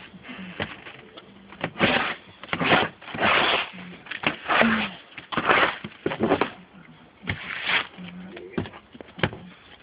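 Snow crunching and scraping in a run of short, irregular bursts with small clicks between, as boxer puppies dig and scramble in it.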